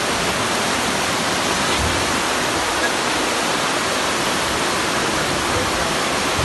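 Muddy floodwater rushing fast down a narrow street in a steady, loud rush of water.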